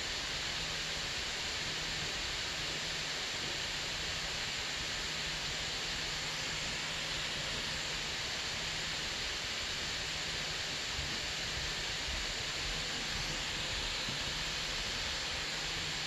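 Microsoft Surface Book 2's GPU cooling fan running under gaming load: a steady, even whoosh with a faint low hum underneath.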